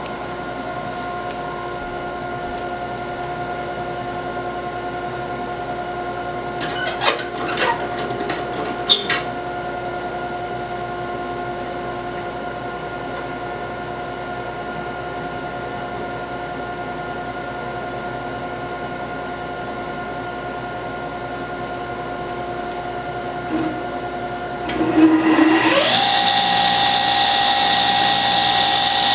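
A steady machine hum with a few sharp knocks of wood on the saw table about seven to nine seconds in. Near the end the table saw is switched on: its motor whines up in pitch and then runs at a steady, louder, higher whine with the blade spinning free.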